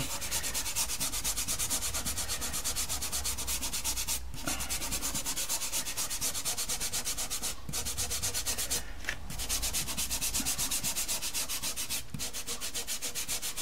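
A hand rubbing soft pastel into toothed pastel paper, blending a sky: a fast, even, scratchy back-and-forth rub of many strokes a second, with short breaks about four, seven and a half, nine and twelve seconds in.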